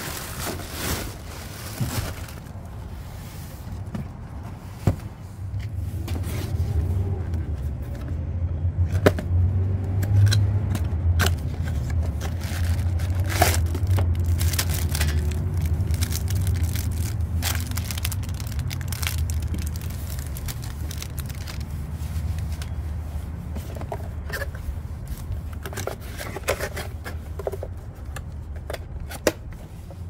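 Cardboard box and plastic packaging being handled: scrapes, crinkles and sharp clicks as items are lifted out and unwrapped. A low rumble swells in about six seconds in and fades away over the next fifteen seconds or so.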